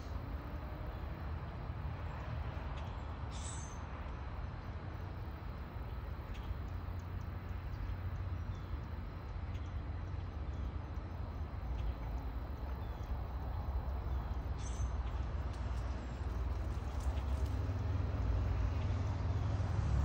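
Steady low outdoor rumble, growing slightly louder toward the end, with two short high-pitched chirps, one a few seconds in and one about three quarters of the way through.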